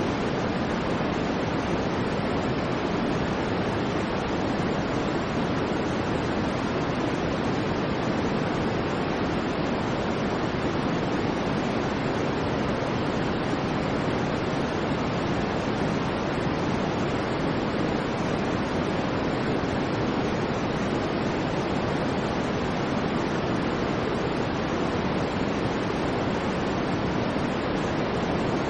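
Steady, unchanging white noise: an even rushing hiss, fuller and deeper than a thin hiss, with no rise, fall or break.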